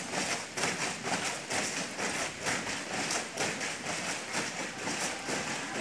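A squad of cadets marching in step on wet concrete, their boots striking together about twice a second.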